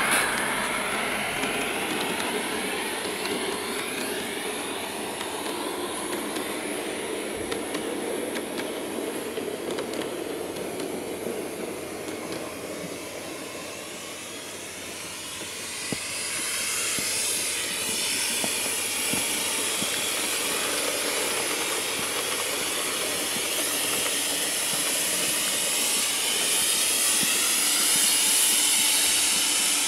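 Coal-fired Accucraft K28 live steam model locomotive running with its train, giving a steady hiss of steam. The hiss grows louder and brighter about halfway through.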